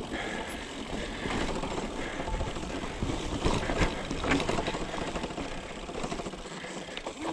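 Mountain bike rolling down a rocky dirt trail: tyres crunching over stones and the bike rattling steadily over the bumps, with a few sharper knocks.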